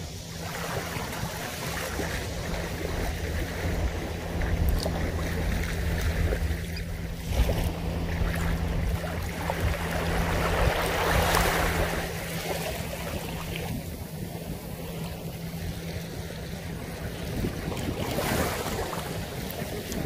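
Small waves lapping and washing up over a sandy shore, swelling into a louder wash about ten seconds in and again near the end.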